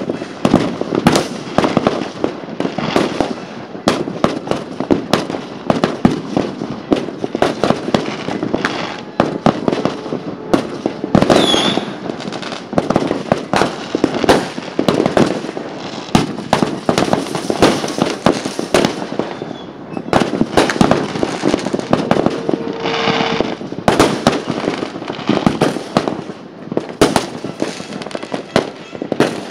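A dense, unbroken barrage of fireworks: aerial shells banging and crackling many times a second. A short whistle cuts through about a third of the way in.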